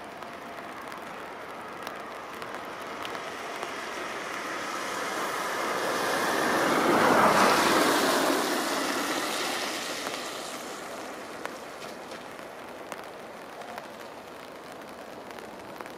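A passing vehicle's rushing hiss that builds over several seconds, peaks about halfway through and fades away again.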